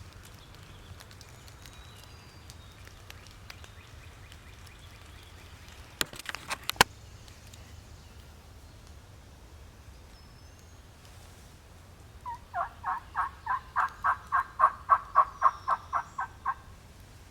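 A run of about twenty quick turkey yelps, about five a second, building up and then fading. A brief cluster of sharp clicks comes about six seconds in.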